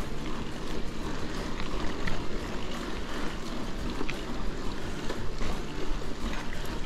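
Bicycle riding along a dirt trail: tyres rolling over the ground and wind rumbling on the microphone, a steady rough noise with occasional small clicks and rattles.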